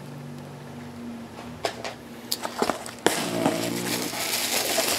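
Clear plastic packaging handled off-camera: a few light clicks and taps, then from about three seconds in a steady crinkling rustle of plastic wrap.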